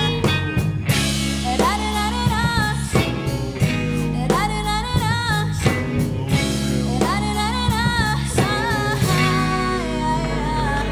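Live band playing the closing passage of a rap song: regular drum kit hits over a steady bass and guitar, with a melodic lead line that bends and wavers in pitch.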